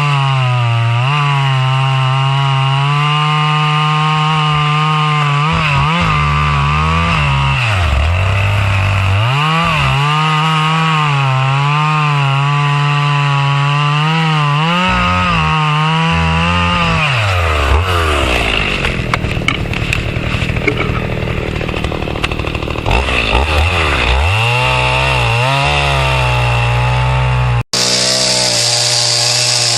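Two-stroke chainsaw running at high revs while cutting a thick tree trunk. The engine pitch sags each time the chain bites under load and recovers when it eases off. For a few seconds in the middle the engine falls to a low, rough run, then revs back up. Near the end there is a brief break before the saw runs again at full throttle.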